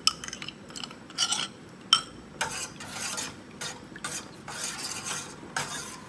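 A metal spoon clinks and scrapes against a ceramic bowl a few times, then stirs milk in a stainless steel pot with a repeated swishing scrape, about two strokes a second.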